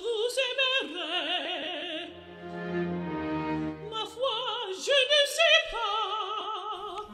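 Operatic singing: a voice holding long notes with a wide vibrato. About two seconds in it gives way to low held accompaniment notes, and the voice comes back about four seconds in.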